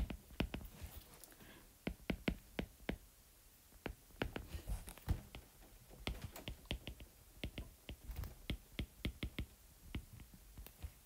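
Stylus tip tapping and clicking on a tablet's glass screen during handwriting: irregular sharp clicks, several a second, with short pauses between words.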